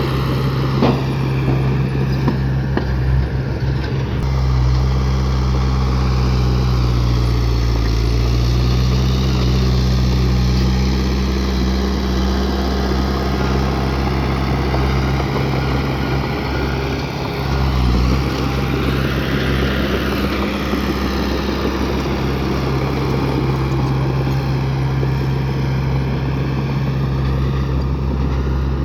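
Bulldozer's diesel engine running under load, a steady low drone whose pitch dips briefly twice. A higher whine rises and falls about two-thirds of the way through.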